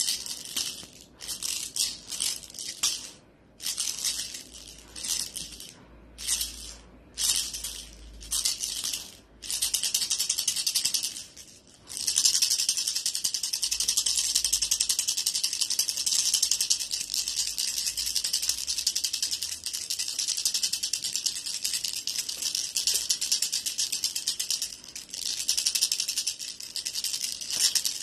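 Rattling of a cat wand toy as it is shaken. It comes in short bursts for the first twelve seconds or so, then keeps up without a break.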